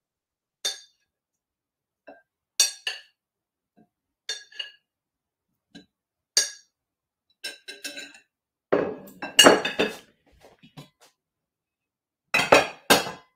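Kitchen utensils clinking against pots and ceramic bowls while food is served: single sharp clinks every second or two, a heavier clatter about nine seconds in, and a quick run of loud clinks near the end.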